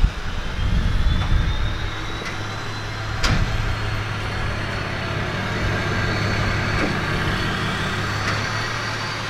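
A motor running steadily with a low hum and a thin high whine that climbs slightly over the first few seconds, then holds. There is one sharp click about three seconds in.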